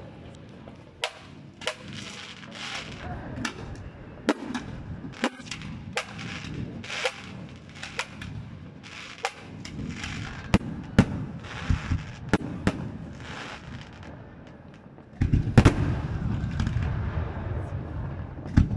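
Fireworks display: sharp bangs from launches and bursting shells, at times several a second. About fifteen seconds in it turns into a louder, denser barrage with a heavy low rumble.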